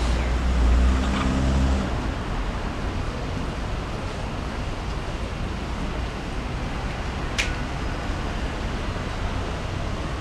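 Outdoor traffic noise: a vehicle's low engine hum fades out about two seconds in, leaving a steady background hiss of distant traffic. A single short high chirp, falling in pitch, sounds about seven seconds in.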